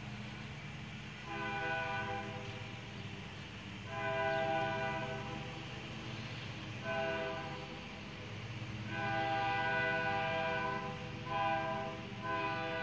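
Air horn of the approaching Louisiana & Delta Railroad diesel locomotive 1504 sounding the grade-crossing signal: long, long, short, long, then two more blasts near the end. A steady low diesel rumble runs underneath.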